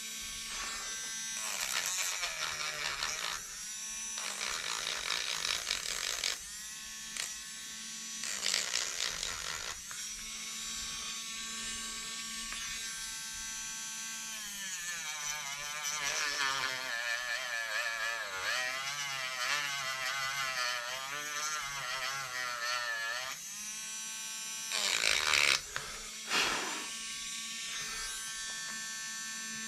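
Handheld corded rotary tool running at high speed, its motor whine shifting and wavering in pitch as the bit is pressed against the workpiece. Louder bursts of grinding hiss come several times, the strongest near the end.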